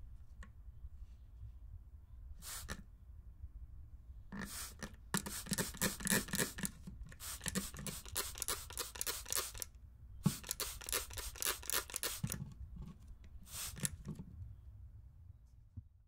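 Plastic trigger spray bottle spraying water: a single hissing squirt, then another, then two long runs of rapid trigger pumps, several squirts a second, and a short run near the end.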